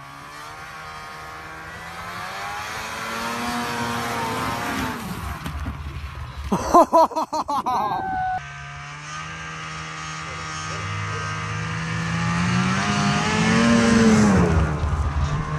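Snowmobile engine running at speed while towing a sled. It grows louder as it comes on, and its pitch rises and falls as it passes close by near the end.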